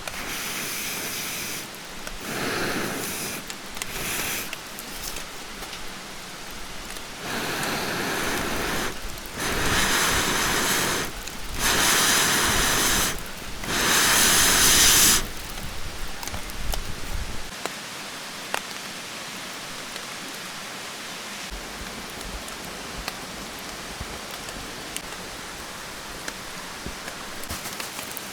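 Steady rain with scattered drops ticking. Over the first half a string of loud noisy bursts of a second or two each comes and goes, the loudest about halfway through, before the rain is left alone.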